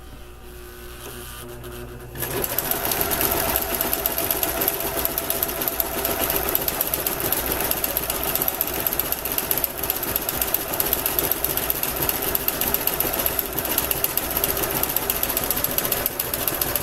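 Kenmore entry-level domestic sewing machine sewing steadily along the edge of cross stitch fabric, starting up about two seconds in.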